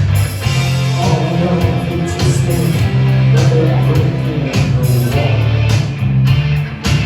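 Live band music from a duo: guitar over a loud, steady bass line with a regular beat.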